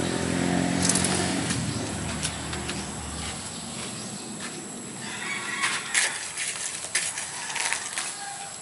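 A passing motorcycle's engine fading away over the first three seconds or so, followed by scattered sharp clicks and rustles.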